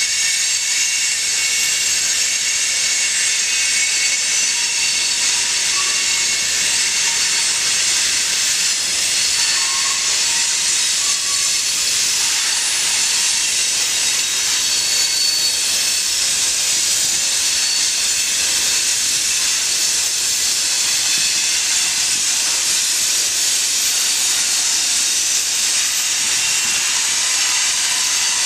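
A passing train's cars rolling by on the rails: a steady rushing of wheels on track, with a few faint, brief squeals.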